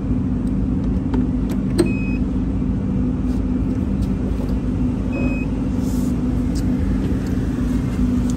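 A steady low engine rumble with a constant droning hum, and a couple of light clicks about one and two seconds in.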